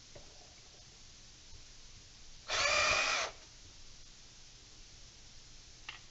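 Power drill with a square-drive bit running in one short burst of under a second, backing out a square-headed pocket-hole screw. A light click near the end.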